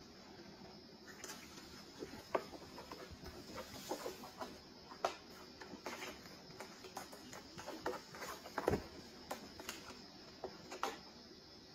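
Kittens' claws scratching and tapping on a corrugated-cardboard cat scratcher as they clamber over it: irregular faint scrapes and clicks, with a louder bump about nine seconds in.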